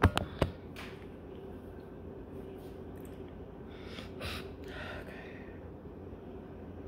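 A few sharp clicks right at the start, then a woman's heavy, nervous breathing, with a couple of sharp breaths about four to five seconds in.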